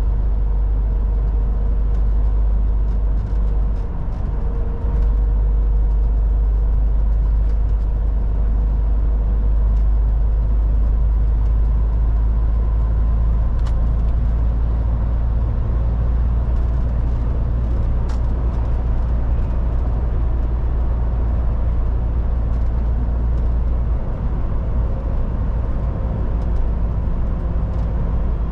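MAN TGX 18.440 truck driving at a steady pace: a constant low engine drone with tyre and road noise and a faint steady whine above it.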